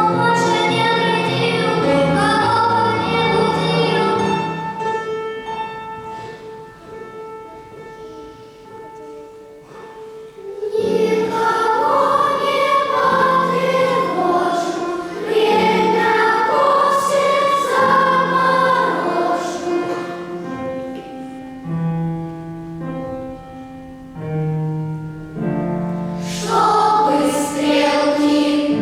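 Choir singing a song with instrumental accompaniment. A long held note fades out about five seconds in, and the choir comes back in full about ten seconds in, with a quieter stretch later before it swells again near the end.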